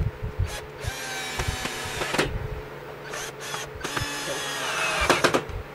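Cordless drill/driver driving screws into a 2x4 wooden frame, run in two bursts of about one and two seconds. The motor's pitch drops partway through the second run, and there are a few sharp knocks from handling the wood.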